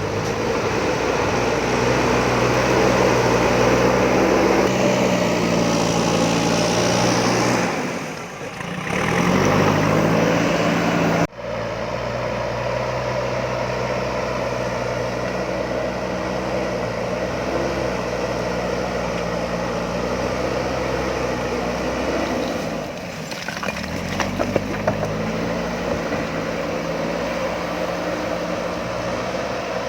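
JCB backhoe loader's diesel engine running under work, its revs dropping and climbing back twice, with an abrupt break about eleven seconds in. A few short knocks come about two-thirds of the way through.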